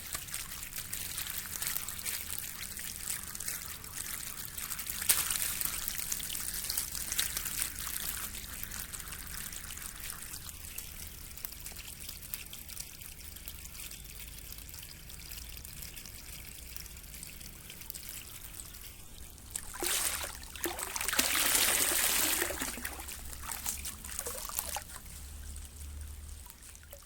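Water trickling and rippling steadily, with a louder, splashier surge about three-quarters of the way through.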